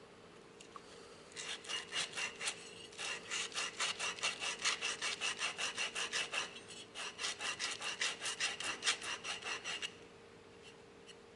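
Sandpaper rubbed by hand back and forth over a part of a disassembled electric horn, in quick rasping strokes of about four a second. The strokes break off briefly twice and stop near the end.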